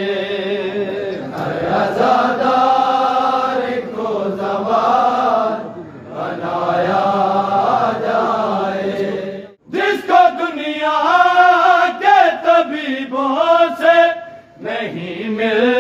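Group of men chanting an Urdu noha, a Shia mourning lament, in long drawn-out sung phrases, with a short break about nine and a half seconds in.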